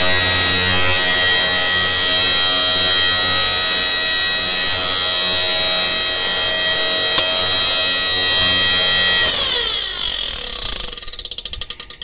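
Inverter welding machine's cooling fan running with a loud, steady hum made of many tones at once, which the owner puts down to something catching on the fan. About nine seconds in the hum falls in pitch and dies away as the fan winds down, ending in ticks that come slower and slower.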